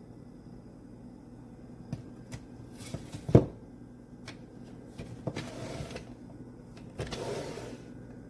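Kitchen knives handled in their storage block: a few clicks and a solid knock, then several short scraping slides of blades against the block.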